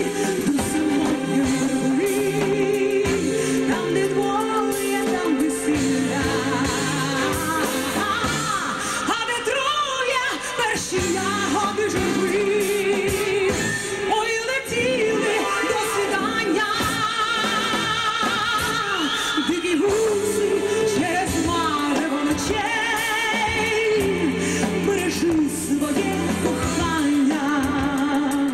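Female singer performing with a military orchestra, singing a melody with wide vibrato on her long held notes over the orchestra's sustained chords.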